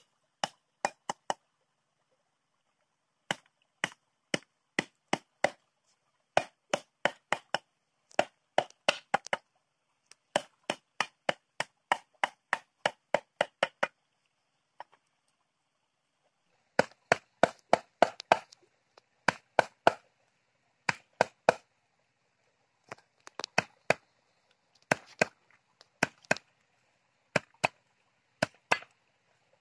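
A curved sickle-like blade chopping garlic on a wooden cutting board: sharp knocks two or three a second, in runs broken by short pauses.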